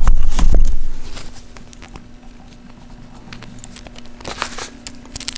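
Handling noise with thumps in the first second, then light scattered clicks and rustling as small nuts and bolts are picked off a sheet of paper. A faint steady hum runs underneath.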